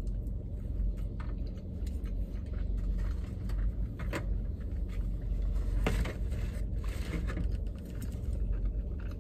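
Scattered clicks and crackles of a clear plastic sushi takeout tray and wooden chopsticks being handled, with quiet chewing, over a steady low rumble of the car's cabin. The loudest crackles come about four and six seconds in.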